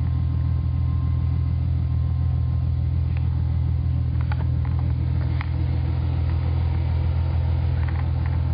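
V6 Ford Mustang engine idling through Flowmaster 40 Series mufflers: a steady, deep, loud exhaust rumble with no revving.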